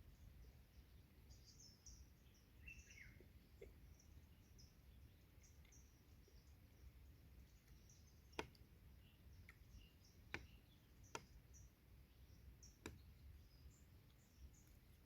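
Faint forest ambience: distant birds giving short, high chirps, with four sharp clicks in the second half over a low steady rumble.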